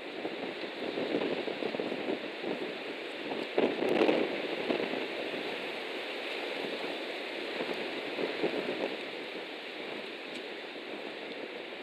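Strong wind gusting across the nest camera's microphone in a rushing, rumbling haze, swelling loudest about four seconds in.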